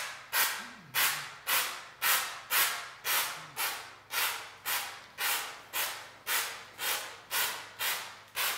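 Homax aerosol can of popcorn ceiling texture, a steady run of sharp hissy bursts about two a second, each fading quickly.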